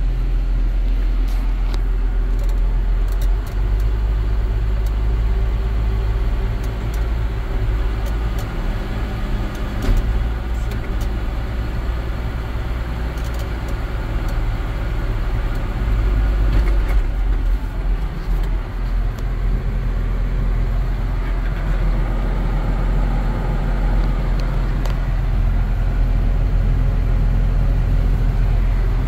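John Deere 6930 tractor's six-cylinder diesel engine running steadily as the tractor drives along, heard from inside the cab as a deep, even drone, with a few faint clicks or rattles in the first ten seconds.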